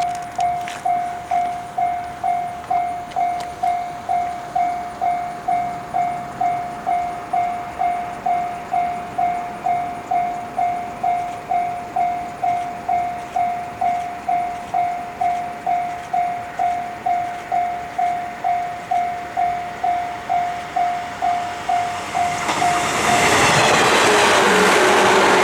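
Japanese level-crossing warning bell dinging steadily at about one and a half strikes a second. About 23 seconds in, the WEST EXPRESS Ginga, a converted 117-series electric train, reaches the crossing and the loud, even noise of its passing drowns out the bell.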